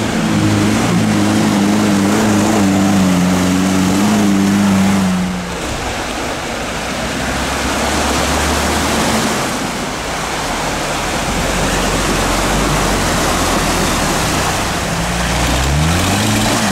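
Lada Niva off-roaders driving through a deep muddy puddle: engines running under load while muddy water splashes and surges around the wheels. A steady engine note for the first five seconds gives way mostly to the noise of the water, and an engine revs up near the end.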